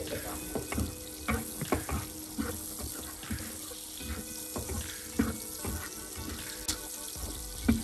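Sausages sizzling in hot oil in a nonstick frying pan. A plastic slotted spatula knocks and scrapes against the pan again and again as they are turned.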